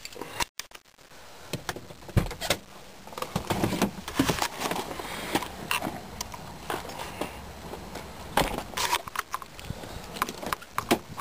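Car keys jangling amid scattered clicks and knocks of handling, with the engine switched off and silent.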